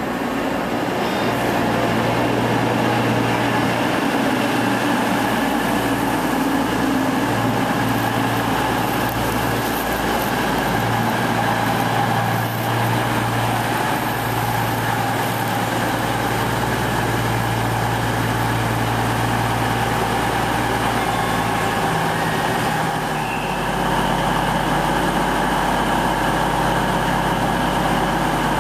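CrossCountry Voyager diesel multiple unit running in along the platform and drawing to a stand, its underfloor diesel engines running with a steady low hum. The engine sound grows a little louder and deeper near the end.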